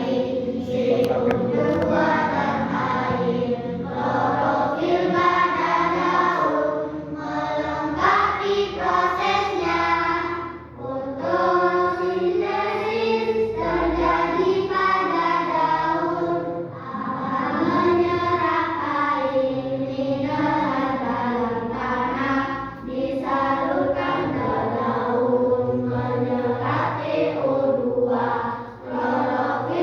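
Several voices singing a song in Indonesian together, with short breaks between lines.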